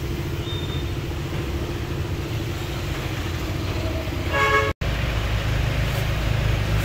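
A vehicle engine idles with a steady low hum, and a short horn toot sounds about four and a half seconds in. Right after, there is a sudden break, and a louder engine hum follows.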